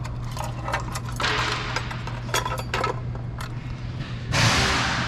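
Small parts and tools being handled during tail-light wiring work: a string of light clicks and clatters, a short hiss about a second in, and a louder burst of rustling noise near the end, over a steady low hum.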